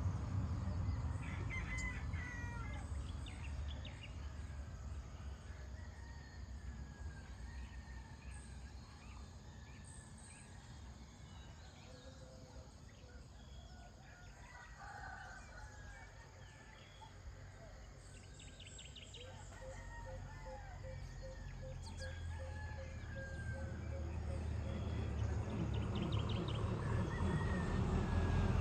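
Dawn rural ambience: a rooster crowing among chirping birds. A vehicle's engine rumble fades out over the first few seconds, and another builds up louder toward the end.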